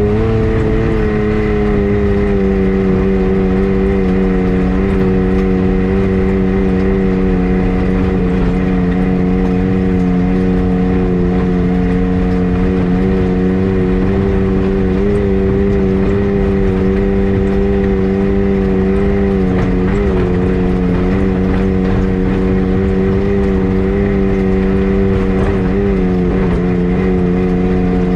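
A motor vehicle's engine running at a steady speed, holding one nearly constant pitch with slight dips about 20 and 25 seconds in.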